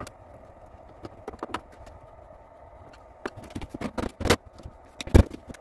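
Scattered clicks and knocks from the plastic case of an Acorn A3000 computer being handled and moved on a cardboard-covered bench. They come in a quick cluster past the middle, and the loudest single knock falls near the end.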